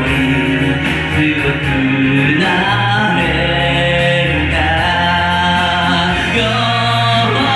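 Karaoke of a pop ballad: sung vocals holding long notes over the backing track.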